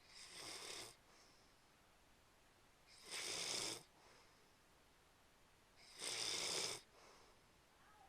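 Snoring: three snores about three seconds apart, each under a second long.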